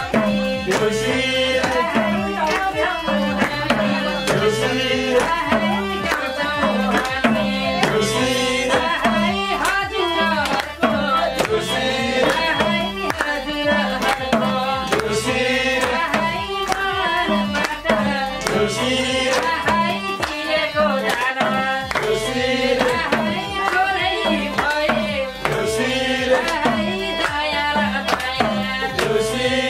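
Nepali Deusi folk song: a madal hand drum beaten in a steady rhythm, with an electronic keyboard and group singing.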